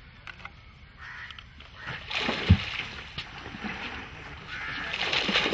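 Water splashing and wet lagoon sand slapping down as sand is shovelled and washed at the water's edge, with one sharp thud about halfway through.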